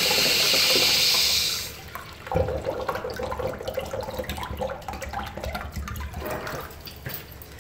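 Urinal flushing: a loud rush of water for nearly two seconds, then quieter splashing and draining that fades away.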